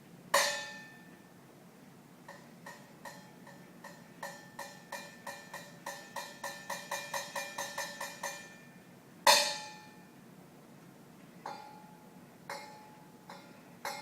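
A ringing metal object struck by hand: one loud strike, then a run of lighter taps that quicken to about four a second and grow louder, a second loud strike about nine seconds in, and a few scattered taps near the end. Noise made to test a dog's hearing.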